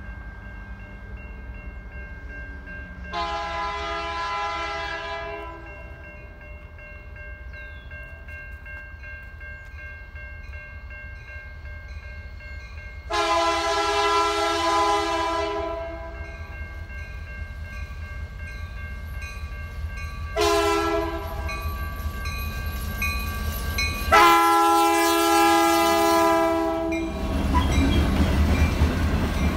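Canadian National diesel locomotive's air horn sounding the long–long–short–long grade-crossing signal as the train approaches, over a steady low engine rumble. Near the end the train draws level and the wheels rolling over the rails take over.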